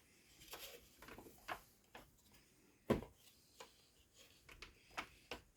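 Scattered light clicks and knocks from the plastic parts of a new McCulloch CS35S chainsaw being handled as its chain brake (chain lock) is worked, the loudest knock about three seconds in.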